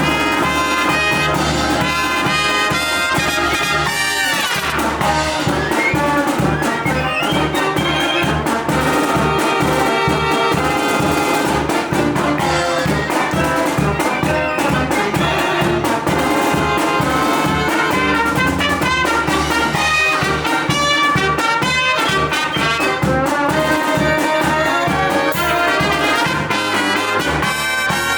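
Live brass band playing: trumpets and trombones over a steady drum beat, with a quick downward slide about four seconds in.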